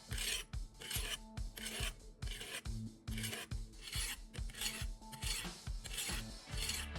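A knife blade being sharpened on an abrasive sharpening stone held at a fixed angle by a homemade guide. The rasping strokes come in a steady back-and-forth rhythm, about one and a half to two a second.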